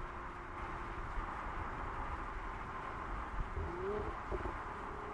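Mercedes-AMG GLC 43 Coupé driving along at speed: steady tyre and wind noise with a faint, even engine tone underneath. About four seconds in, a short coo-like call glides up and down over the road noise.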